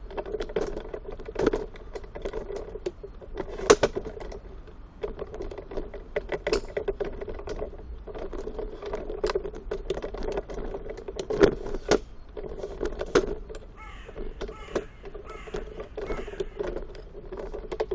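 A crow cawing over and over, with sharp clicks and knocks scattered through; the loudest knocks come about four seconds in and again around eleven to thirteen seconds.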